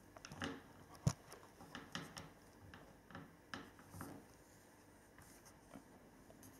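Faint handling noises as a model airliner on its stand is turned about on a glass tabletop: soft taps and rubbing, with one sharper knock about a second in.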